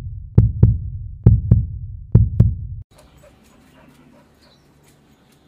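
Heartbeat sound effect: three deep lub-dub double thumps, about a second apart, that cut off abruptly a little under three seconds in. After that there is only faint background noise with a few light ticks.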